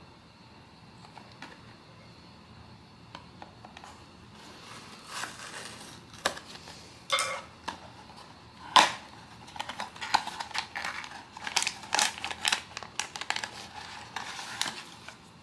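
Hands handling a blind box and its packaging: scattered clicks, taps and crinkling of cardboard and plastic, quiet at first and busier in the second half, with one sharper knock about nine seconds in.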